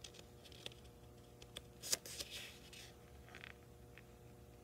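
Faint handling of a hardcover picture book: a few small clicks and short rustles of fingers and paper as the book is held and shifted, the sharpest click about two seconds in, over a steady low room hum.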